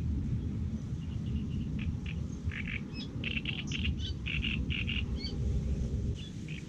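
Small birds chirping in quick runs of short calls, loudest in the middle, over a steady, uneven low rumble of wind on the microphone.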